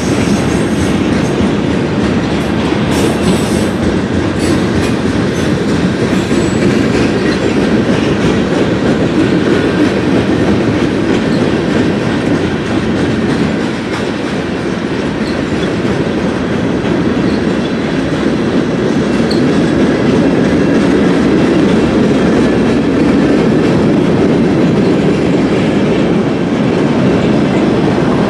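Freight cars of a long mixed freight train rolling past: a steady rumble and clatter of steel wheels on the rails.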